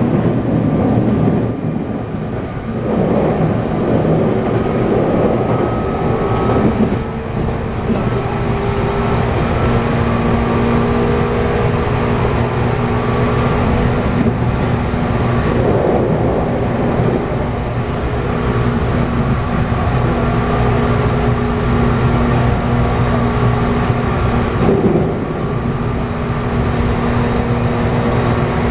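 Running sound inside a Meitetsu 6000 series resistor-controlled electric train: traction-motor and gear hum at a steady pitch over wheel and rail rumble.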